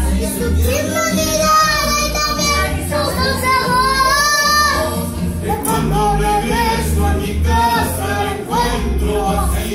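A young boy singing long, held notes over accompanying music with a steady, pulsing bass beat.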